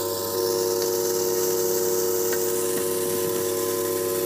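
Electric motor of a household atta chakki (flour mill) running at full speed, a steady high whine over a rushing hiss of air.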